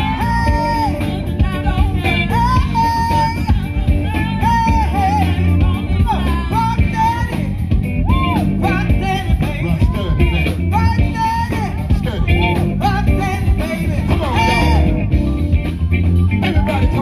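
Live band playing: a woman sings lead through a microphone and PA, over drum kit and guitar, in sung phrases that bend and slide in pitch.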